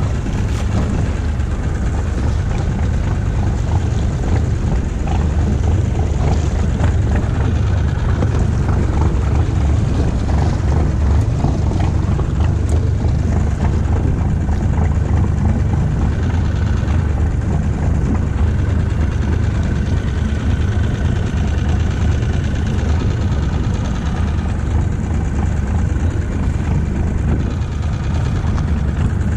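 Small outboard motor on an inflatable dinghy running steadily at low trolling speed, with wind and water noise over it.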